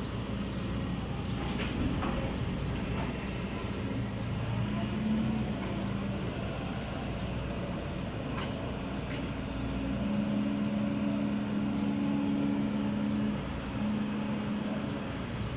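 Backhoe loader's diesel engine running steadily. About two-thirds of the way through it revs up higher and louder for a few seconds, as when working under load, then drops back.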